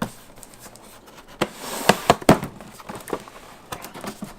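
Toy helmet box packaging being opened by hand: scattered sharp clicks and snaps, with a burst of rustling about two seconds in.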